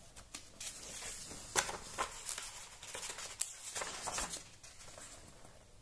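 Magazine pages being turned and handled: a handful of soft paper rustles and light snaps, spread unevenly through the moment.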